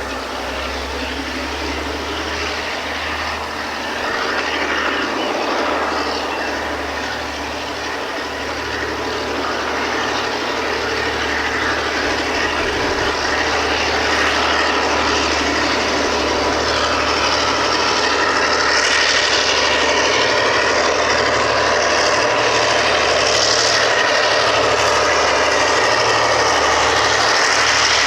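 Two DC-class diesel-electric locomotives running loud under power. The engine noise builds over the first half and then holds steady.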